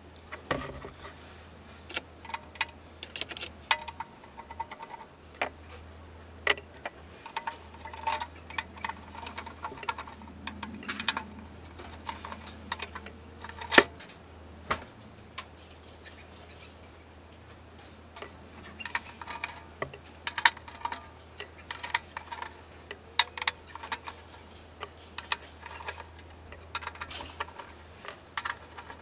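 Screwdriver work and handling on the metal bottom plate of a Renegade REN1800 car amplifier as its screws are taken out: irregular light clicks and ticks, with one sharper knock about halfway through, over a low steady hum.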